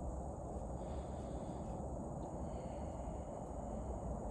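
Outdoor evening ambience: a steady high-pitched insect chorus over a low, even rumble, with a couple of faint higher tones.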